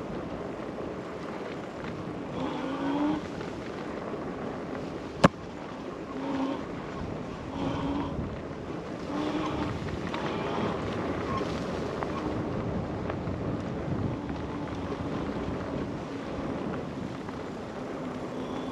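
Riding noise from an e-bike on a trail: wind buffeting the microphone over tyre rumble, with a low hum that comes and goes in short spells and holds steadier in the second half. One sharp click about five seconds in.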